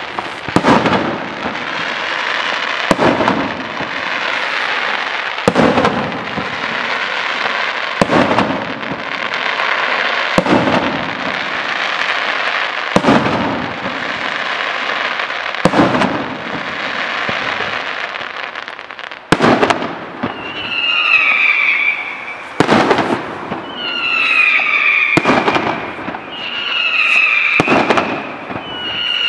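Daytime fireworks display: loud aerial shell bursts about every two and a half seconds over a continuous crackling. In the last third, whistling fireworks with a slightly falling pitch sound between the bangs.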